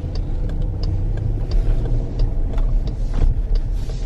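Dodge Durango R/T's 5.7-litre HEMI V8 and tyres heard from inside the cabin while driving on a snowy road: a steady low rumble, with light scattered clicks over it.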